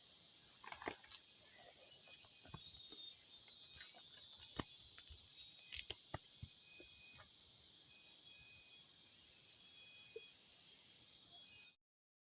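Steady high-pitched insect chorus drone, with a few short clicks in the first half; the sound cuts off abruptly near the end.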